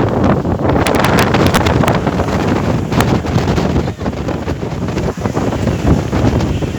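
Strong wind buffeting the microphone: loud, steady rushing noise with crackles from the gusts, over big waves on a lake.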